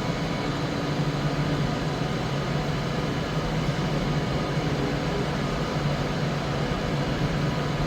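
Steady hum of an electric train at the platform: a low, even drone with a few faint steady tones above it.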